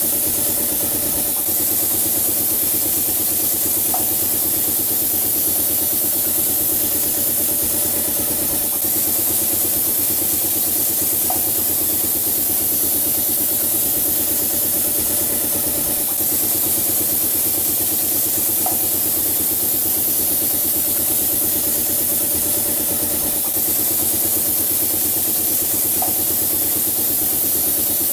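Steady machine hum under a strong hiss, from the wall painting machine's hose-fed spray gun and its drive at work, with a faint short tone about every seven seconds.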